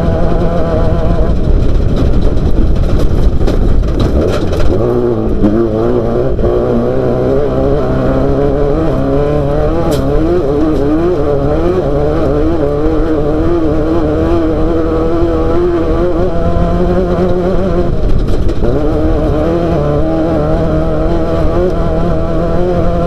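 Off-road race vehicle's engine running hard, its revs wavering up and down constantly, with a drop and climb in revs about five seconds in and again near the end.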